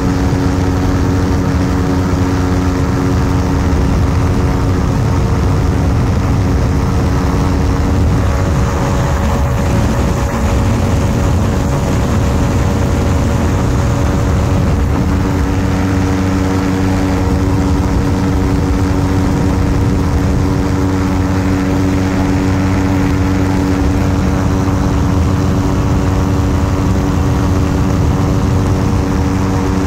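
An ultralight aircraft's piston engine and propeller running at a steady drone, with a rushing noise underneath.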